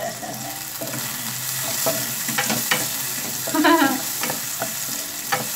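Onions and other aromatics sizzling steadily in a hot oiled pan as a wooden spatula stirs and scrapes them, with the spatula knocking against the pan now and then.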